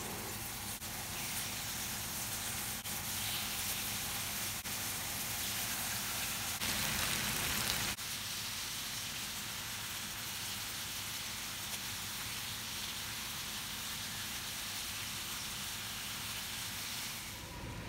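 Gochujang-marinated pork belly sizzling steadily in hot oil in a nonstick frying pan, with a few faint clicks. The sizzle gets briefly louder about seven seconds in.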